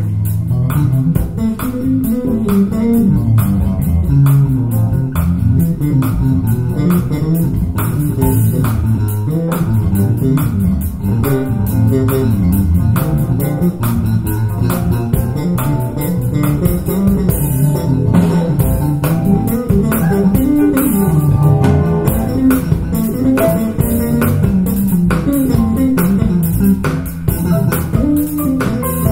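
Music with a prominent bass line and guitar, played through a pair of Paradigm Monitor SE Atom two-way rear-ported bookshelf speakers and picked up by microphones about 10 ft away in the room.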